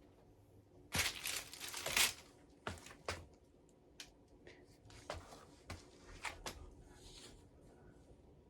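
Casablanca Four Seasons III ceiling fan running faintly on medium speed in reverse. A burst of crinkling noise comes about a second in, and scattered clicks follow through the rest.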